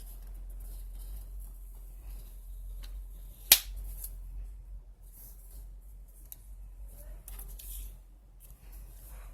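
Paper rustling and being handled for collage work, with one sharp, loud click about three and a half seconds in, over a steady low electrical hum.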